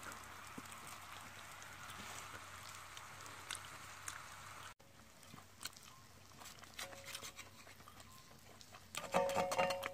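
Pork neck and sausages sizzling on a thick cast-iron griddle, a steady crackling hiss with scattered small pops, fainter after a cut about halfway. Near the end, a brief high-pitched whine.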